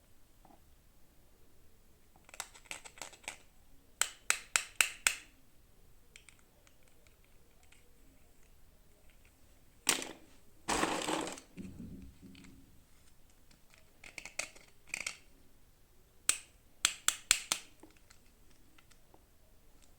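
Toy packaging being handled and opened: sharp plastic clicks in quick runs of four or five, with a longer crackle about eleven seconds in.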